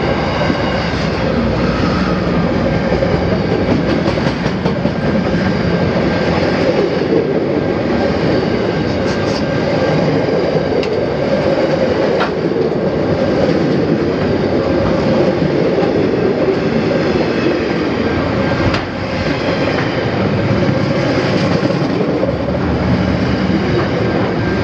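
Container wagons of a long intermodal freight train rolling past, a loud steady rumble of steel wheels on the rails with a couple of sharp clanks along the way.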